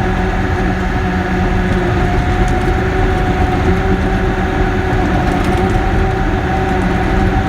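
Caterpillar D6K bulldozer's diesel engine running steadily, a constant drone with a low rumble and no change in pitch.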